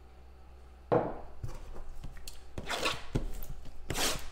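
A sudden knock on the tabletop about a second in, then rubbing, scraping and small taps as hands handle a cardboard trading-card box.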